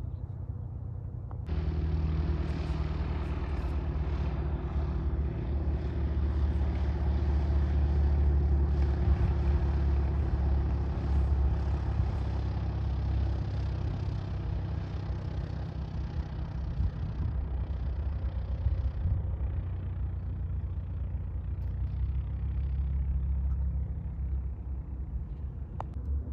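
Piper PA-28-151 Cherokee Warrior's four-cylinder piston engine and propeller running steadily at low power as it taxis close by. The drone comes in suddenly about a second and a half in and is loudest in the middle.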